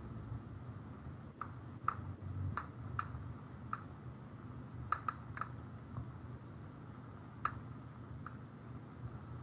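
About a dozen light clicks at a computer, irregularly spaced, over a low steady hum.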